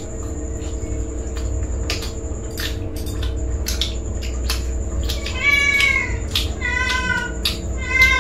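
Crisp crunching and clicks of fuchka shells being bitten and chewed. About five seconds in, a cat starts meowing: three short bending meows about a second apart.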